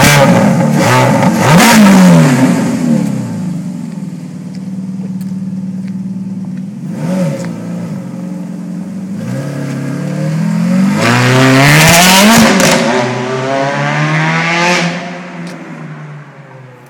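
Ferrari F430's 4.3-litre V8 on its standard exhaust, revved in a series of sharp blips with a longer, louder rev about eleven seconds in. The sound falls away near the end.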